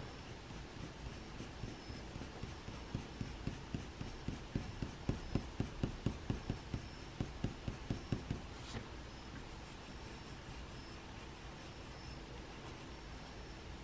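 Pencil shading on paper in quick back-and-forth strokes. For several seconds in the middle the scratching becomes a run of louder, regular strokes, about three or four a second, then it settles back to light scratching.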